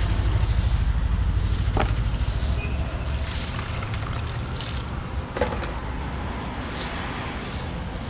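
Vehicle engine running with a steady low rumble. Two brief sharp sounds come through, about two seconds and five and a half seconds in.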